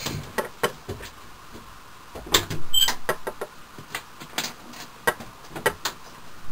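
Scattered knocks, clicks and rustles of someone moving about and reaching under a door to retrieve a small plastic toy arrow, with the loudest knocks a little past two seconds in and a short squeak about three seconds in.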